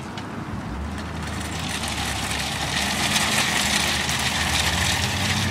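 Wire shopping carts rolling across asphalt, their wheels and baskets rattling in a rough noise that grows louder as they come closer, with a steady low hum underneath.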